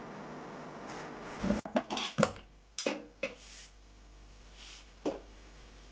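A quick run of sharp clicks and knocks about a second and a half in, with one more knock near the end, over a steady low hiss: hard parts of a washing machine being handled and pressed during a repair.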